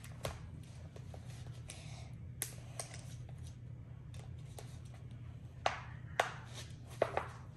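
Light clicks and taps of plastic tubs and a lid being handled on a counter, scattered through, with a few sharper clicks in the last couple of seconds. A steady low hum runs underneath.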